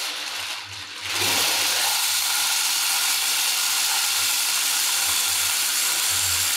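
Electric chopper grinding whole almonds: a steady whirring, grinding motor noise that grows a little louder and settles to an even level about a second in.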